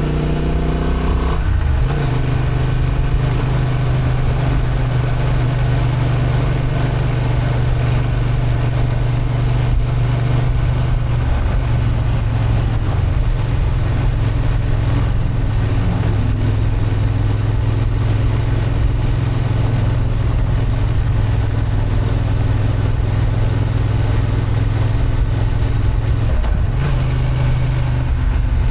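Honda XL750 Transalp's parallel-twin engine, in its 35 kW restricted form, running under load as the motorcycle is ridden. The engine note changes pitch a few times, with a brief dip near the end.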